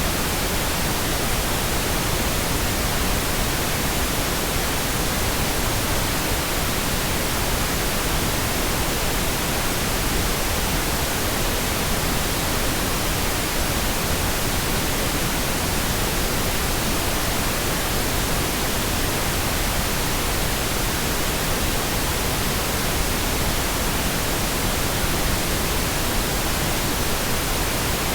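Steady, unbroken pink noise: an even hiss across all pitches with no change.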